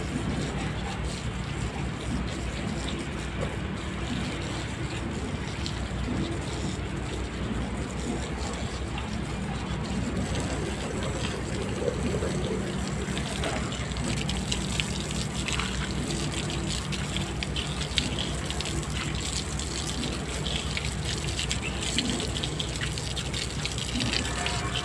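Garden hose spraying water against a car's body panels: a steady splashing hiss with small surges as the stream moves.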